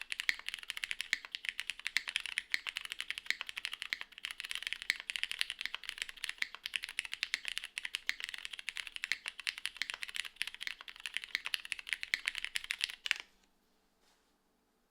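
Fast continuous typing on a plateless, gasket-mounted mechanical keyboard with Cherry Hyperglide Black linear switches and GMK Muted doubleshot ABS keycaps, a dense run of muted keystrokes that stops abruptly about 13 seconds in.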